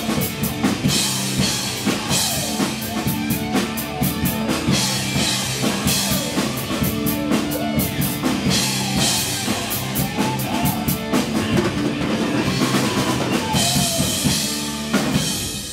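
Acoustic drum kit played along to a rock song with electric guitar, kick, snare and cymbals hitting hard, with heavy cymbal crashes near the end.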